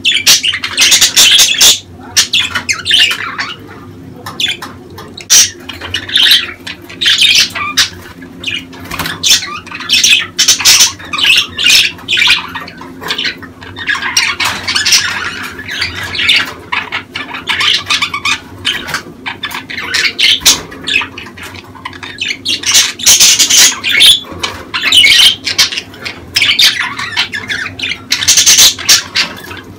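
Budgerigars chattering and warbling in a dense, unbroken run of rapid chirps and harsh squawks: breeding-season budgie calls of the kind played to stimulate hens to lay.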